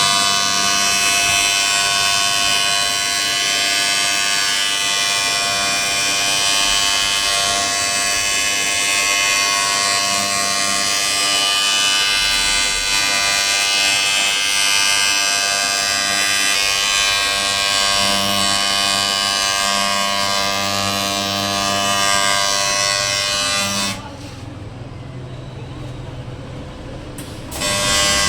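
AC TIG welding arc on an aluminium wheel rim, a steady, even-pitched buzz over a hiss. The arc cuts off about 24 seconds in and strikes again about three and a half seconds later.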